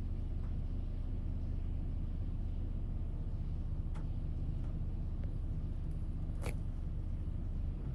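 Steady low rumble, with a faint click about four seconds in and a sharper one about six and a half seconds in.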